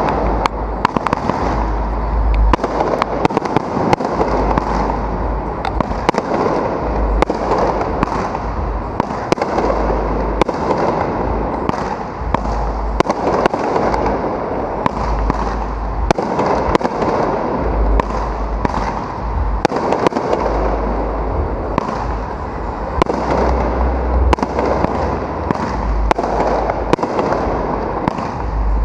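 Fireworks display close overhead: a continuous barrage of aerial shells launching and bursting, with many sharp bangs in quick succession and no let-up.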